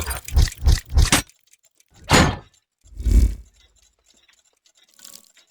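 Trailer sound effects: a run of heavy percussive hits, about three a second, stops a second in, followed by two separate deep booming swells about a second apart, then a faint short sound near the end.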